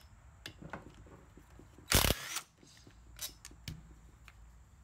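Light clicks and taps of metal engine parts and hand tools being handled on a workbench, with one loud, short metallic clatter about two seconds in.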